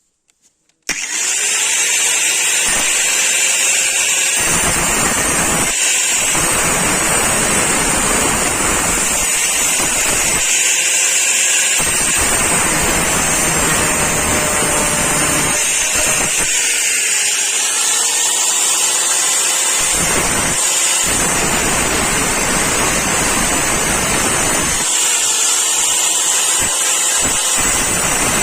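Power tool working the steel of a chainsaw guide bar. It starts suddenly about a second in and runs continuously with a loud, high hiss. Its lower sound comes and goes in stretches as the load changes.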